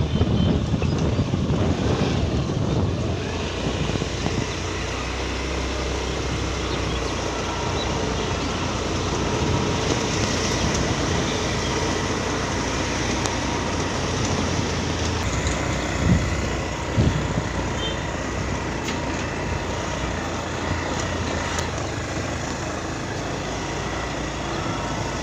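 Steady engine and road noise of a moving vehicle, heard from on board as it travels along rural roads and lanes. Two brief louder bumps come a little past the middle.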